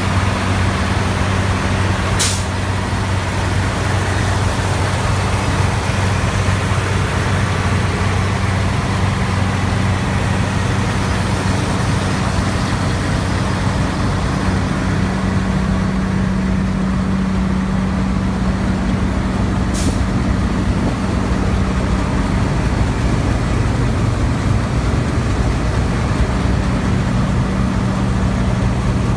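New Holland TX68 combine harvester running, its six-cylinder engine giving a loud, steady hum. There are two brief high hisses, about two seconds in and again near twenty seconds.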